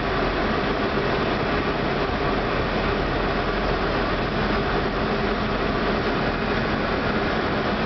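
Steady cockpit noise of an Airbus A319 on final approach: an even rush of airflow with engine noise and a few faint steady tones underneath.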